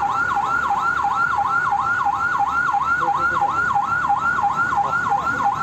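Emergency vehicle siren in a fast yelp, its pitch sweeping up and down about three times a second.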